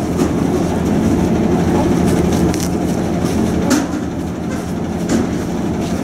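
Steady rumble and rattle of a moving shuttle bus heard from inside, with a few light knocks.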